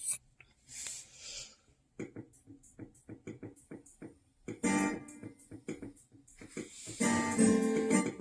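Guitar introduction to a song. Single plucked notes come first, then strummed chords that grow louder and fuller near the end.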